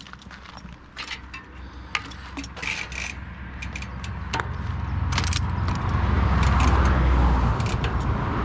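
Mountain bike riding on a dirt trail: chain and components clicking and rattling, with tyre and wind rumble building as the bike gathers speed from about four seconds in.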